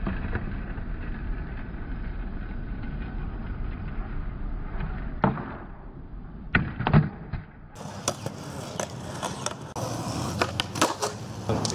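Skateboard wheels rolling on concrete, then a sharp snap of the tail about five seconds in and a couple of hard knocks of the board landing about a second and a half later, as in a flip trick. More rolling follows with scattered clacks of the board.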